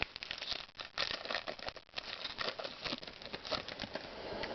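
Baseball trading cards and their pack wrapping handled by hand: a busy run of small clicks, rustles and crinkles as the cards are flipped through.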